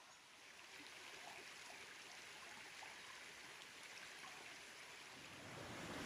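Faint, steady rush of a rainforest creek running over rocks, growing louder and fuller near the end.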